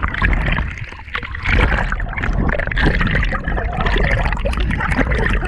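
Water splashing and sloshing close to the microphone, many small irregular splashes over a steady low rumble.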